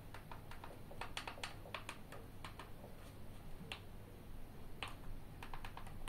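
Sharp plastic clicks of buttons pressed on a small handheld remote. They come in quick runs of several, with single clicks between.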